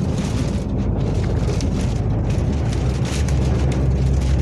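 Strong gusting crosswind battering a moving truck, heard with the truck's engine and road noise as one heavy, steady low rumble.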